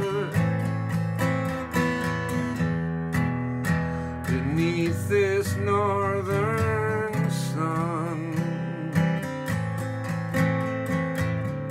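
Acoustic guitar strummed in a steady rhythm. A man sings a wavering melody over it from about four to eight seconds in.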